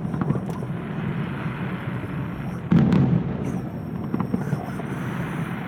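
Aerial firework shells bursting, a steady rumble of crackling reports. One heavy boom comes a little under three seconds in.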